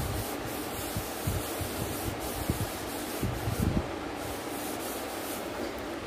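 A hand rubbing over pencil shading on paper to smudge and blend the graphite, with a few soft low thumps of the hand against the paper and table.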